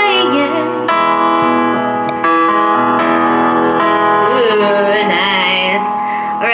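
Piano accompaniment playing sustained chords that change about every one and a half seconds, with a voice singing softly over it at times.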